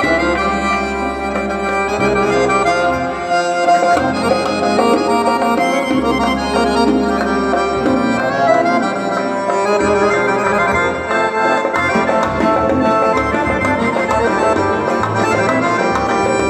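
Live band playing an amplified instrumental passage of Uzbek folk-pop with no singing: a reedy, accordion-like melody carries the tune over electric guitar and keyboard. A heavy bass part holds long notes in the first half and turns choppier after about eight seconds.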